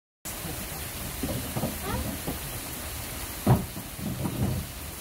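Steady hiss of falling rain, with a few short low thuds; the loudest comes about three and a half seconds in.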